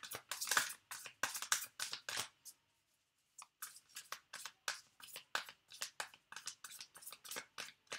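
A deck of tarot cards being shuffled by hand: a quick run of soft card slaps, several a second, which pauses about a third of the way in and then resumes.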